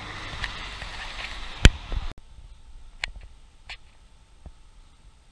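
Steady outdoor hiss with one sharp click a little over a second and a half in and a smaller one just after. It cuts off abruptly to quiet room tone with a few faint ticks.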